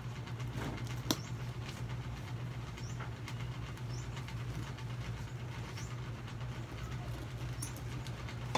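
Light clicks and rattles from a leather satchel's metal buckles and clasps as it is handled, with one sharp click about a second in. Behind them is a steady low hum and a few faint, short, high chirps.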